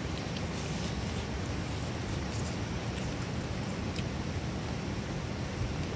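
Steady low rumble of wind on the microphone, with a few faint clicks of someone eating, biting and tearing roasted meat.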